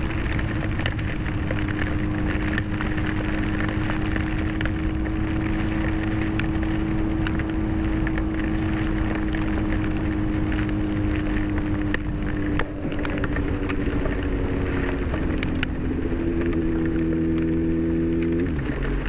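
Motorcycle engine running at a steady highway speed under heavy wind rush, with rain ticking against the camera. The engine note shifts near the end.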